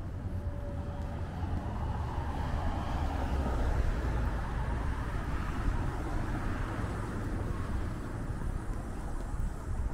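Street traffic: a steady low rumble, with a car passing that swells and fades a few seconds in.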